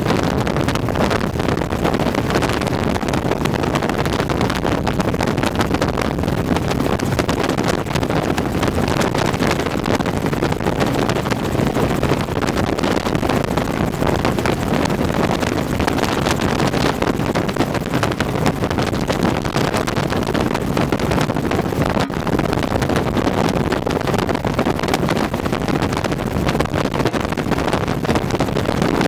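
Helicopter engine and rotor noise, a constant loud rush with a low steady hum.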